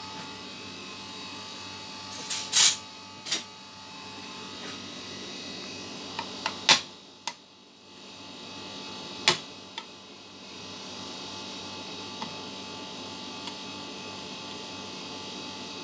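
A spoon clinking sharply against a ceramic plate about half a dozen times, over a steady electrical hum.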